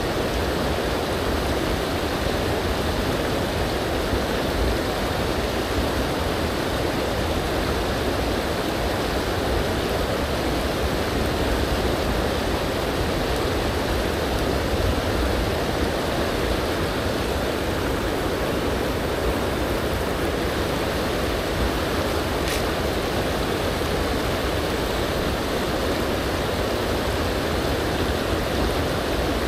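Small, shallow river rushing steadily over stones, heard close by.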